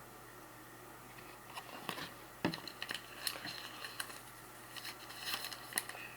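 Trading cards being handled and sorted by hand: soft slides, rustles and small clicks of card stock, with a sharper tap about two and a half seconds in.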